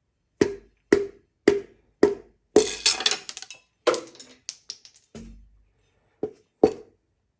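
Hammer strikes driving a piston and connecting rod out of a Chevy 350 small-block V8's cylinder: four sharp knocks about half a second apart, then a rattling clatter and a few lighter clicks, with two more strikes near the end. The piston is stuck because it isn't turned far enough and its edge catches on the cylinder wall.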